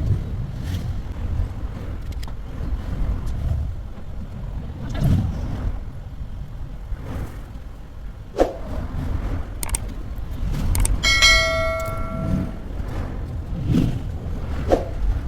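A steady low rumble with a few scattered knocks, and about 11 seconds in a short bell-like metallic ring lasting about a second.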